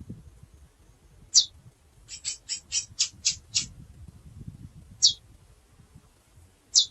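Female chestnut-bellied seed finch (curió) calling: single sharp chips that slide downward, spaced a few seconds apart. A quick run of about seven short notes comes a couple of seconds in.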